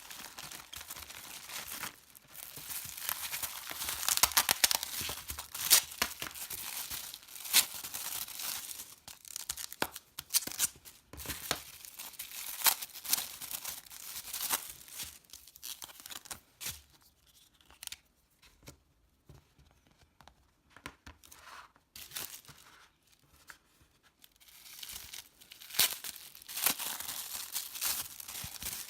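Packaging being torn open and crinkled by hand, in irregular bursts of tearing and rustling with sharp crackles, as a parcel is unboxed.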